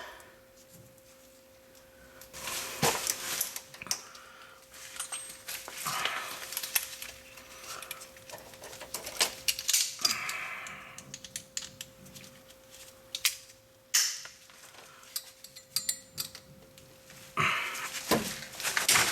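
Parking brake cable and steel tensioner bracket being worked by hand: irregular metallic clinks, rattles and short scrapes as the cable is pulled into the bracket. A faint steady hum runs underneath.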